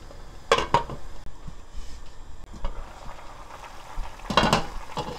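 A glass pot lid clinks against a steel stockpot twice about half a second in, and there is another short clatter of lid and pot a little after four seconds in. A pot of soup bubbles at the boil in between.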